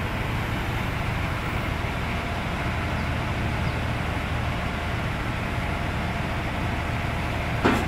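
Diesel engine of a Komatsu PC300-6 excavator running steadily while its arm is positioned. A single sharp knock comes just before the end.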